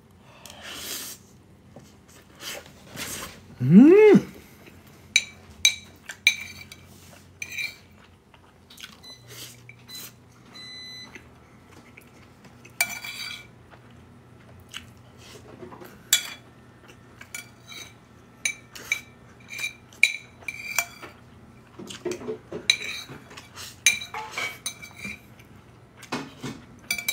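Metal spoon clinking and scraping against a ceramic bowl as forkfuls of omurice and broccoli are scooped up: many short taps, several with a brief ring. About four seconds in, a short hum of the eater's voice slides up and back down in pitch.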